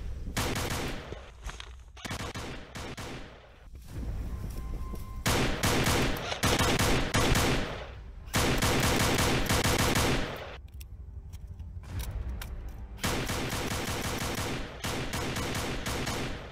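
Airsoft rifles firing long bursts of rapid automatic fire, each a dense run of cracks lasting a few seconds, with short pauses between bursts.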